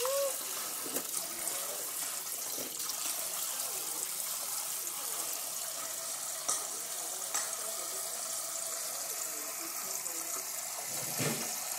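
Kitchen sink sprayer running a steady stream of water into a filled sink, with small splashes as a baby's hands play in the water.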